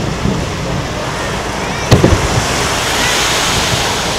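Fireworks display between large bursts: a steady rushing background with one sharp bang about two seconds in.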